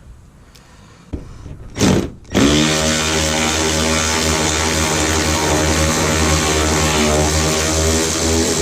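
A power drill starts a little over two seconds in and then runs steadily at constant speed, drilling out the plastic rivets that hold the trim, after a few short knocks.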